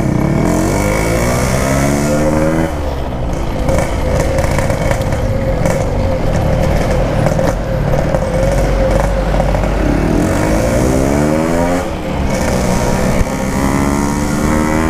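Yamaha RX-King 135cc single-cylinder two-stroke engine, on an aftermarket PK 2 exhaust, accelerating through the gears: its pitch climbs in three steep runs and drops back at each gear change, with a steadier cruise between.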